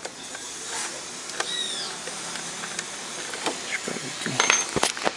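Handling noise from a thin rod being pushed by hand into a wireless microphone's broken telescopic antenna: scraping and rubbing with scattered clicks that come more often near the end, over a steady hiss.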